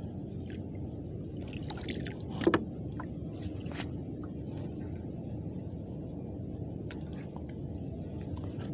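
Steady low rumble of a small fishing boat at sea, with scattered light clicks and one sharper knock about two and a half seconds in.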